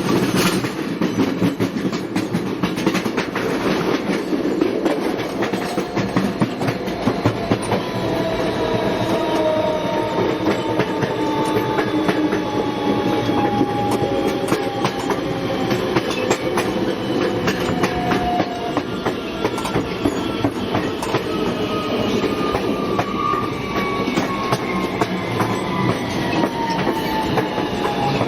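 Subway train running: steady rumble with frequent clickety-clack of the wheels, and a thin high whine that slowly falls in pitch.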